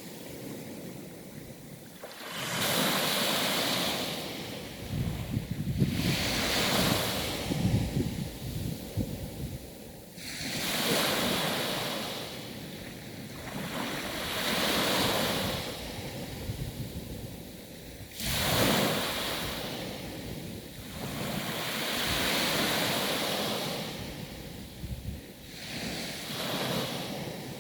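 Sea waves breaking and washing in, one swell about every four seconds.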